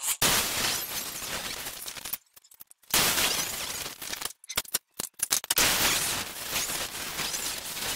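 Angle grinder cutting into steel clamped in a bench vise, heard in several abrupt runs of grinding broken by short gaps and a choppy stretch, with a steady run from about five and a half seconds in.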